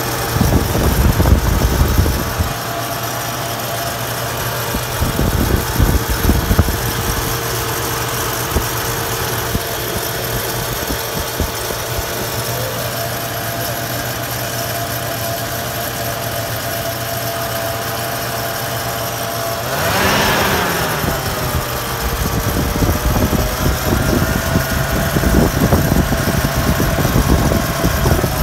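Third-generation Toyota 4Runner engine running with a steady whine and a rattle, a noise that began after an oil change and that the owner cannot identify. About twenty seconds in the engine speed rises briefly and the whine bends up and settles back.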